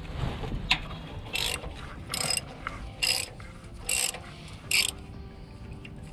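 Hand ratchet wrench clicking in six short bursts, a little under a second apart, as it is worked back and forth loosening a bolt on the starter motor.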